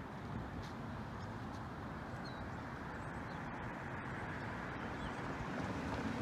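Steady outdoor traffic rumble that slowly grows louder near the end as a car approaches.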